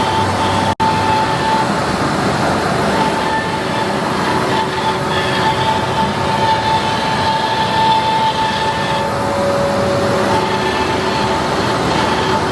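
Metal lathe running while turning a ring: a steady mechanical noise with a constant whine over it. The sound cuts out for an instant just under a second in.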